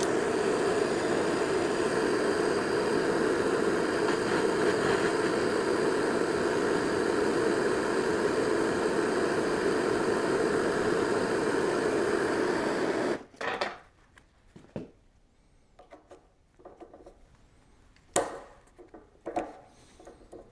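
Handheld gas torch flame burning steadily while it heats a small metal ring held in the flame, then shut off suddenly about 13 seconds in. After that come a few light metal clicks as the ring is handled at the gearbox shaft.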